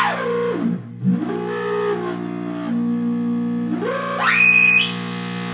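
Steady buzzing tone from a breadboard analog synth oscillator through a resonant Steiner voltage-controlled filter, slightly clipped by the amplifier. The cutoff is swept by hand: the resonant peak glides down to a low growl about a second in, wobbles there, then sweeps back up four seconds in and opens the tone out bright.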